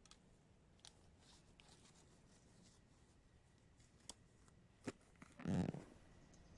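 Faint scattered clicks and rustling, with one louder, short rustle a little past halfway.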